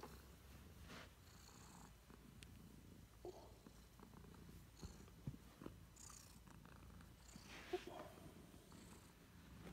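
Tabby cat purring, a faint, steady low rumble, while a hand rubs its head and cheeks; soft rustles of fur and a few light clicks from the stroking hand.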